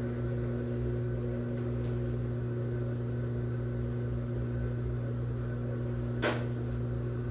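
Washing machine humming steadily just after being started on a quick rinse cycle, with one short click about six seconds in.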